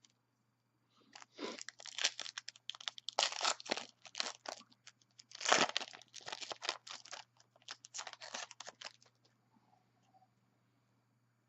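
Wrapper of a Panini Contenders football card pack being torn open and crinkled by hand: a run of crackly rips and crinkles, loudest a little past the middle, stopping about nine seconds in.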